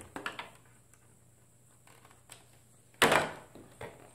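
Tin snips cutting through a plastic armor piece: a couple of short snips just after the start, then a loud sudden knock of hard plastic about three seconds in and a smaller one near the end.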